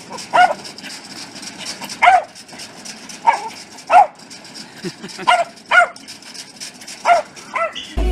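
A dog barking repeatedly: about eight short, sharp barks, roughly one a second. Music cuts in at the very end.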